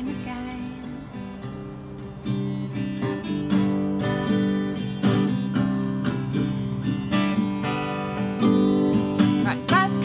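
Acoustic guitar strummed in steady chords under a woman's singing voice. The strumming gets louder a couple of seconds in, and the singing is clearest near the end.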